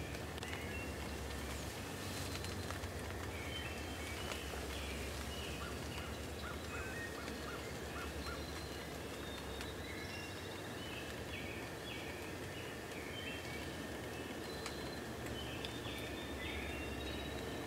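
Outdoor field-edge ambience: small songbirds chirping and calling in short phrases over a low, steady rumble.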